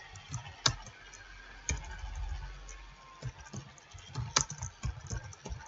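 Typing on a computer keyboard: irregular keystroke clicks, with a few sharper taps among them.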